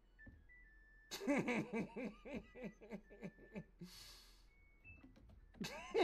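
A man laughing in two bouts of quick, falling 'ha' sounds, the first starting about a second in and the second near the end, with a short hiss between them.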